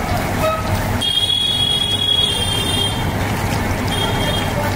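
Batter-coated tomato fritters deep-frying in a large iron kadai of oil, a steady sizzling hiss. A short vehicle horn honks near the start, and a high-pitched steady tone sounds for about two seconds from a second in and briefly again near the end.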